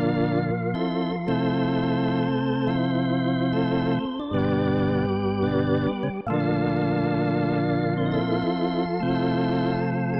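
Native Instruments B4 II software organ, an emulation of a Hammond B-3 tonewheel organ, played as sustained two-handed chords that change every few seconds. The held notes have a wavering shimmer, and there are short breaks between some of the chords.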